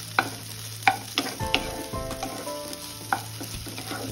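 A spatula stirring a potato and onion masala filling in a nonstick kadhai, the food sizzling. It scrapes and knocks sharply against the pan about five times, irregularly.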